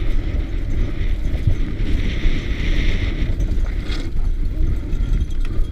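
Wind buffeting a helmet camera's microphone over the rumble and rattle of a downhill mountain bike riding fast over rocky ground, with a hiss for about a second partway through and a sharp knock about four seconds in.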